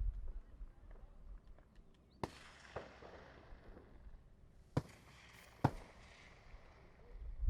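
Distant gunshots from a hunt: about four sharp reports a second or two apart, each trailing off in an echo.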